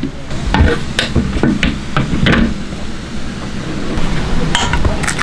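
Kitchen handling noise: flour tipped into a large stainless-steel mixing bowl, with a scattering of knocks and taps as the container meets the bowl. Near the end a steel bowl is handled, giving a few more clinks.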